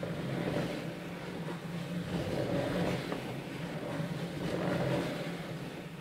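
A spirograph-style drawing machine running, its toothed wooden gear discs turning and its pen tracing lines on paper. There is a steady low hum under a rumbling whir that swells and fades about every two seconds.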